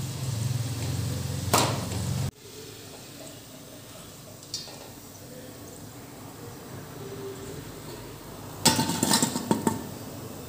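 Oil sizzling around deep-frying baatis over a low hum, with a metal clink about a second and a half in, then a sudden drop to quieter room noise. Near the end comes a short burst of metal clattering as the fried baatis are tipped from a wire strainer into a steel bowl.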